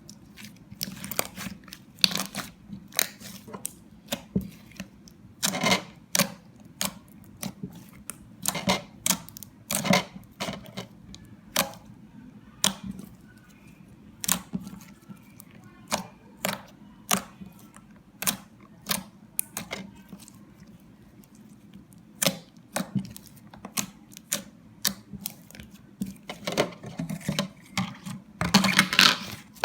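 Slime being squeezed and poked, making irregular sharp clicking pops, one to three a second, over a faint steady low hum.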